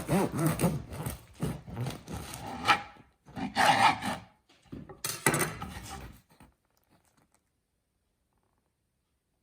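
Serrated bread knife sawing back and forth through the hard crust of a sourdough loaf, about three strokes a second, followed by a few louder crackling crunches of the crust. It falls silent about six and a half seconds in.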